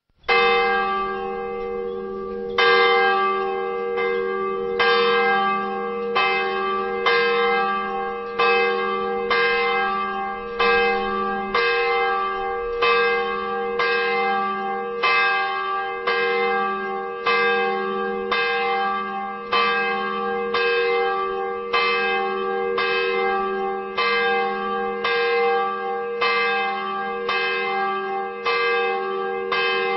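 The 604 kg church bell cast in 1924 by the Seltenhofer foundry in Sopron, swinging and tolling the noon bell: its clapper strikes a little faster than once a second, and each stroke's hum rings on into the next.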